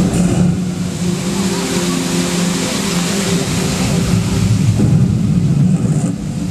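Water-screen fountain spraying: a steady rush of water over a low motor hum.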